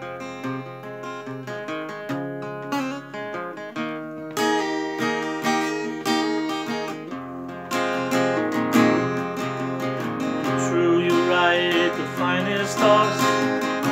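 Steel-string acoustic guitar with a capo, strummed and picked through a song's instrumental introduction, changing chords every few seconds.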